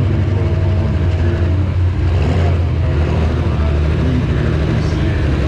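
A heavy engine running steadily, a deep, even sound without a clear rise or fall.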